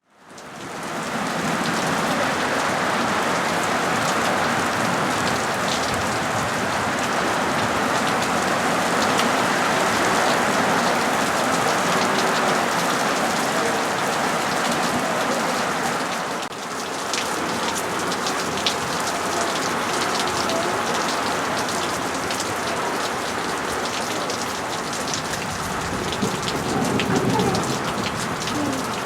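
Steady rain falling on surfaces, an even hiss that fades in at the start, with separate drops ticking sharply through the second half.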